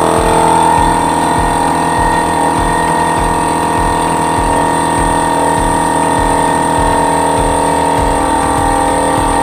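Oil-lubricated piston air compressor running loudly and steadily: a constant whine over a rapid low pulsing from the pump.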